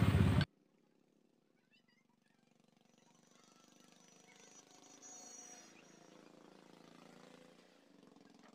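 Near silence: a louder sound cuts off abruptly half a second in, leaving only a faint background with a few thin high chirps and a low hum.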